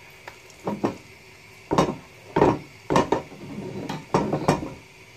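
Kitchen utensils and dishes clattering at the counter while pancakes are made: a run of irregular knocks and clinks, several in quick succession, over about four seconds.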